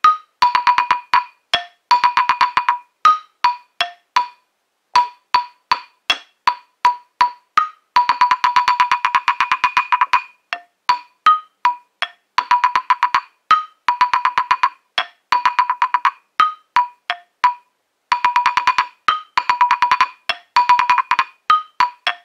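Tiny wooden xylophone played with a single wooden mallet. Quick rolls of rapid repeated strikes, mostly on one bar, alternate with single notes on a few higher and lower bars.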